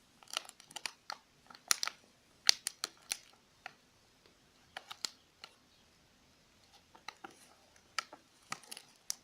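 Scattered sharp clicks and taps at irregular intervals from a small container and a cornstarch box being handled on a table while cornstarch is emptied into the container.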